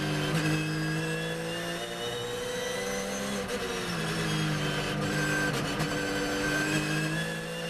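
Porsche 997 GT3 R race car's naturally aspirated flat-six heard from the cockpit under load. The engine note climbs in pitch, drops sharply with a gear change about three and a half seconds in, climbs again, and drops once more near the end.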